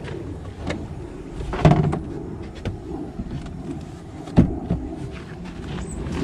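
Knocks and clunks of the car's cargo-area floor board and luggage-compartment panels being handled, with two louder thumps, one about a second and a half in and another past four seconds, among lighter clicks.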